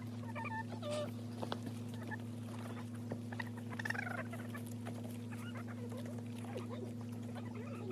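Chickens clucking, with scattered short calls over a steady low hum.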